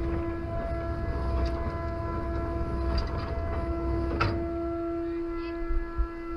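Ship's deck machinery running with a steady hum over a low rumble, and a few light knocks about four seconds in.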